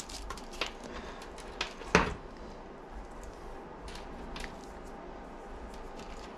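Small parts being handled during assembly of an indicator unit: a few light clicks and one sharper knock about two seconds in, then faint scattered ticks.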